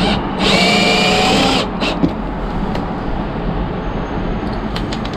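Cordless drill running in one short burst with a whine that rises slightly in pitch as its twist bit cuts through the head of a rusted, stripped screw in a plywood van floor, taking the head off. A few light clicks follow.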